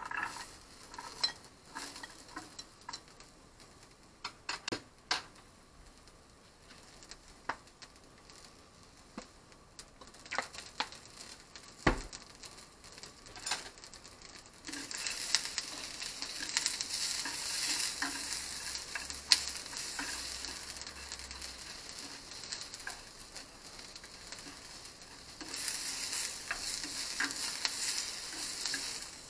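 Garlic scapes and small dried anchovies in a hot non-stick frying pan: at first only scattered small ticks and clicks, with one sharp knock about twelve seconds in. From about halfway a steady sizzle sets in as they stir-fry, growing louder near the end while wooden chopsticks stir them.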